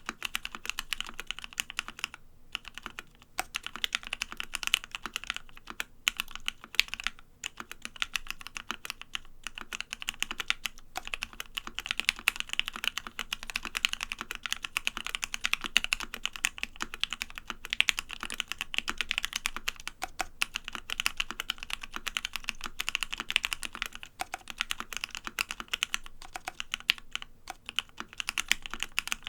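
Fast, continuous typing on a custom 65% mechanical keyboard: lubed Gateron Ink Black linear switches under PBT keycaps on an FR4 plate, giving a stream of key clacks broken by a few brief pauses.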